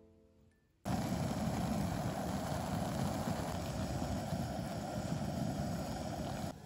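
Instant ramyeon at a hard boil in a metal pot: a dense, steady bubbling rush that starts abruptly about a second in.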